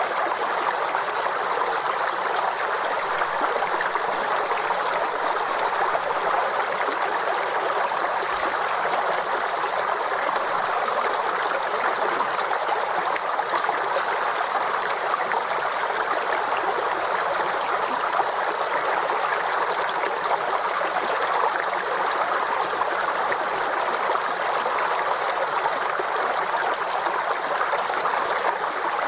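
Forest stream flowing and trickling over stones, a steady, even babble of running water.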